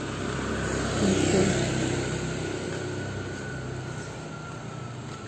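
Motor scooter passing close by, its engine growing louder to a peak about a second in and then fading away.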